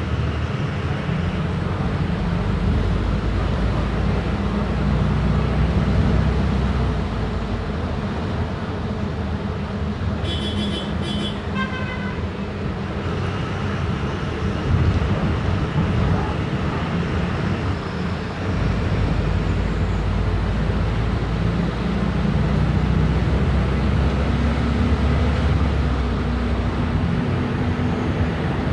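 Volkswagen 9-160 OD bus engine running under way, its rumble rising and easing off several times. A short electronic beeping sounds about ten seconds in, its last few beeps stepping down in pitch.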